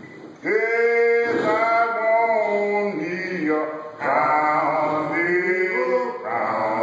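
A small group of men singing a menhaden fishermen's work song a cappella, in chanted phrases; the singing comes in about half a second in after a brief pause and dips briefly near four seconds before going on.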